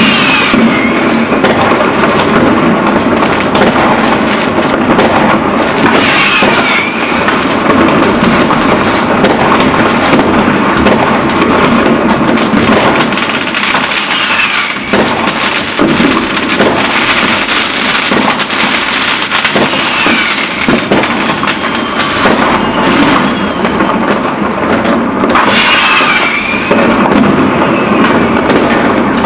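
Fireworks going off all around: a dense, continuous crackle of firecrackers and bangs with no pause. Whistling fireworks give short falling squeals, a run of them from about twelve seconds in.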